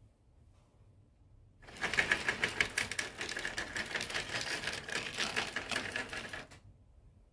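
HO scale model train running past on sectional track: a fast, dense clicking clatter with a steady whine on top, starting suddenly about a second and a half in and cutting off about five seconds later.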